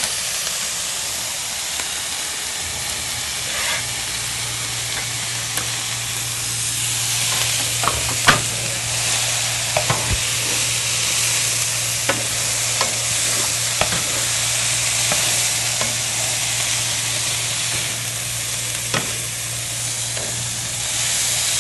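Ground beef, onion and green peppers sizzling in a nonstick frying pan as they are stirred with a plastic slotted spatula, with occasional clicks of the spatula against the pan.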